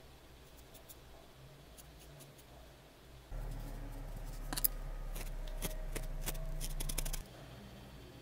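Small pointed scissors snipping wool fibres: a quick series of crisp snips in the second half. A low steady hum comes in suddenly about three seconds in and cuts off about a second before the end.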